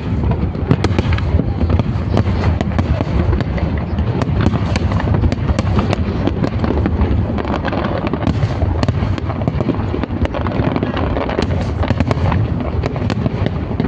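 A continuous fireworks barrage: rapid, overlapping bangs and crackles without a pause, over a deep rumble of booms.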